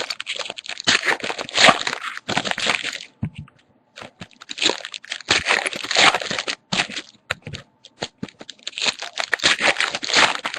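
Baseball card packs being torn open and their foil wrappers crinkled, with cards handled in between. It comes in three spells of rustling and tearing, with brief pauses a little over three seconds in and again near eight seconds.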